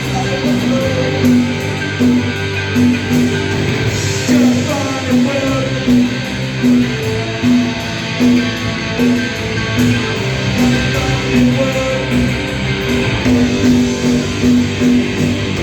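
Punk rock band playing live, an instrumental passage of electric guitar, bass and drums with a repeated low note pulsing in a steady rhythm.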